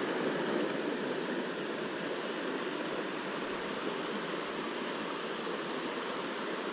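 River current flowing past in the shallows: a steady rush of moving water.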